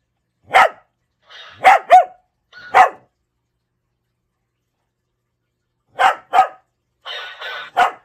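Small black curly-coated dog barking in short, sharp barks, four in the first three seconds and three more near the end after a pause, with softer rough sounds just before some of them.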